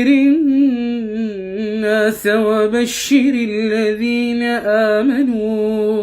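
A man reciting the Quran in melodic tajweed style, drawing out the words "anthir an-nas" (warn mankind) in long, ornamented held notes. The voice is dry, with no added echo or effects.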